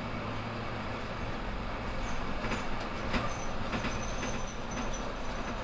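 Mercedes-Benz Citaro C2 city bus idling at a stop, a steady low hum. From about two seconds in there are several clicks and knocks and short, thin, high-pitched squeaks that come and go.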